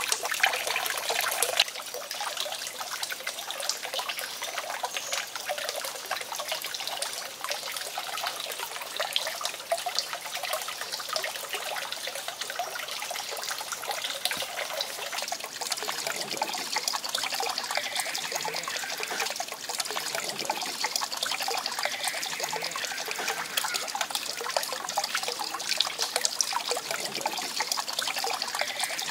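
Water trickling steadily, with a hand splashing in the water during the first second or two.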